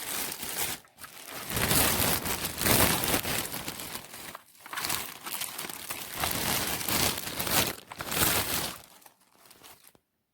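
Loud, irregular crinkling and rustling noise in several swells, with short breaks, cutting off suddenly near the end.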